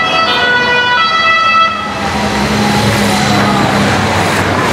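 Two-tone siren of a race escort vehicle, switching pitch about once a second and stopping under two seconds in. It is followed by the noise of vehicles passing close by, with a steady low engine hum.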